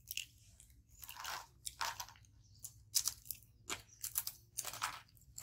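Young macaques biting and chewing crisp wafer snacks: a run of irregular dry crunches, several a second at times.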